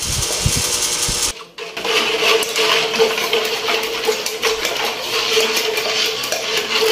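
Spoon stirring a milky mixture in a wok, with repeated clicks and scrapes of metal against the pan over a steady hum. It starts after a short drop in sound about a second and a half in.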